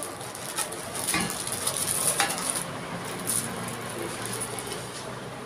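Thin clear plastic sheet crinkling and rustling as it is handled and bunched up, with a few light clicks; the rustling dies down after about two and a half seconds.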